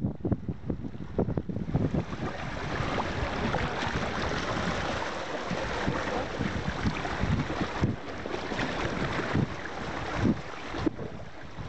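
Shallow sea water washing and splashing over rocks at the shoreline, a steady rushing that swells about two seconds in and eases near the end. Wind buffets the microphone with low thumps at the start and again near the end.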